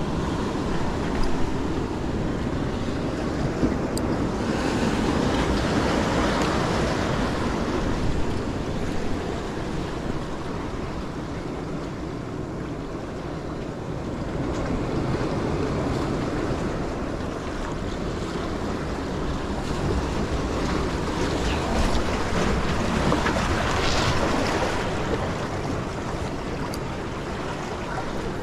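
Surf washing against jetty rocks, with wind gusting across the microphone; the noise swells and eases in slow surges.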